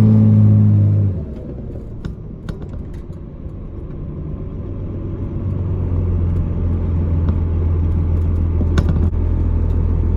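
12-valve Cummins 5.9-litre straight-six diesel running with a deep, steady drone; the revs drop off about a second in, then the engine pulls back up from about five seconds and holds, with a few light clicks in between.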